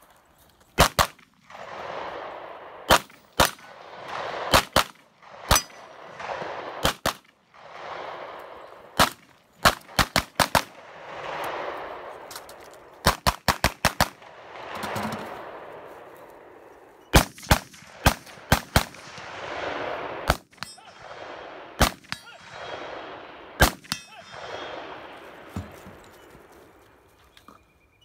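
Gunshots, some from a pistol, fired singly, in pairs and in quick strings of up to about six. Each string is followed by a long echo that rolls back and fades over a second or two.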